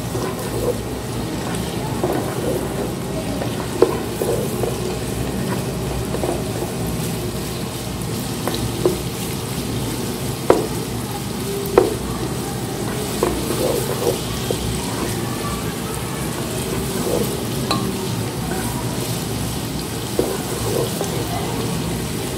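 Sliced onions sizzling steadily in hot oil in a nonstick pan, still pale and not yet browned, while a plastic spatula stirs them, with a few sharp knocks of the spatula against the pan.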